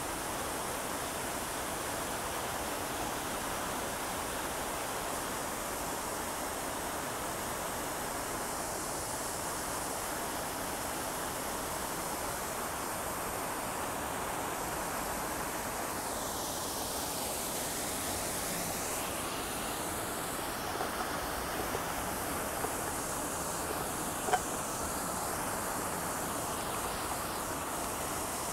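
Revson Fountain's many vertical water jets splashing steadily back into the pool, a constant rushing hiss. The hiss briefly shifts in tone about halfway through, and a single sharp click stands out about three-quarters of the way through.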